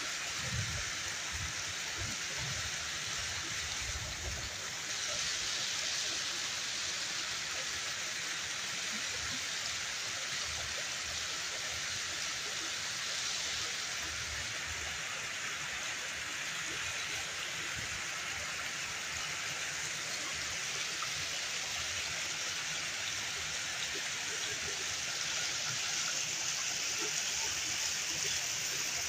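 Ornamental fountain running: water jets splashing and water spilling over the edge into a cascade, a steady hiss. Wind buffets the microphone with low rumbles, most in the first few seconds.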